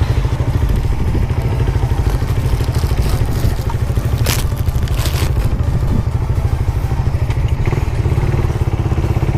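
Suzuki Raider 150 Fi motorcycle's single-cylinder engine idling with a steady, fast pulsing rumble. Two sharp clacks come about midway through.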